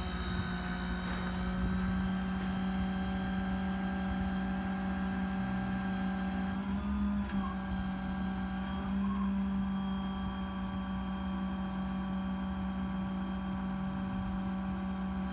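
Engine of a crane (boom) truck running at a steady speed, a constant droning hum. The pitch wavers briefly about seven seconds in.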